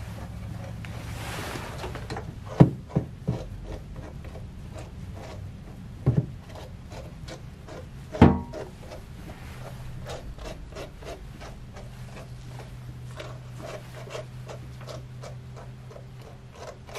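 A grooming brush rasping through a small dog's damp coat in a quick run of short strokes, with three louder knocks spread through.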